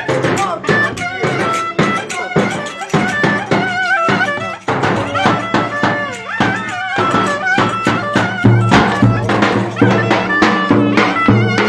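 Turkish folk dance music played live: a reedy wind instrument carries a wavering, ornamented melody over regular drum beats, with a heavier bass coming in about two-thirds of the way through.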